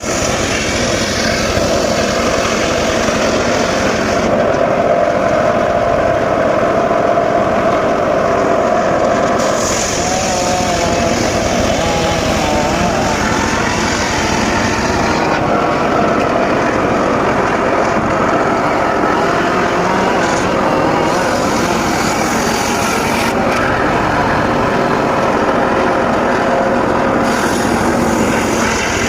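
Engine-driven circular saw running steadily and cutting mahogany wood, a loud continuous noise with a held whining tone. The tone wavers in pitch for a few seconds about a third of the way in.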